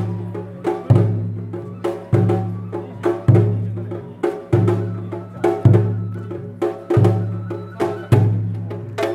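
Japanese festival music: a deep drum struck about once a second in a steady repeating pattern, with quick sharp wooden strikes in between.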